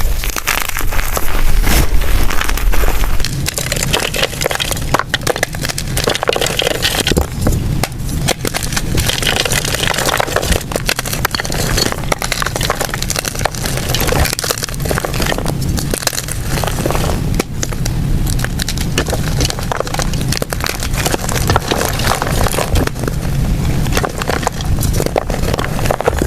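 Gym chalk blocks crumbling and crushing, a steady stream of dry crunching and crackling made of many small cracks.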